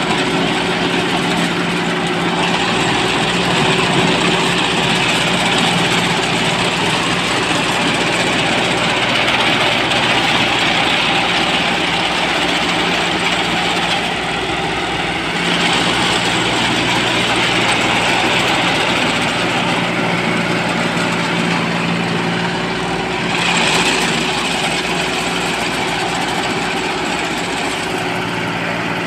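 Small engine of a homemade tracked crawler sprayer running steadily as the machine drives, with a higher hiss over it that swells and fades several times.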